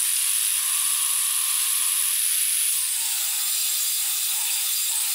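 Electric saw cutting along a laminate flooring plank to trim off its tongue: a steady high whine with hiss that runs without a break.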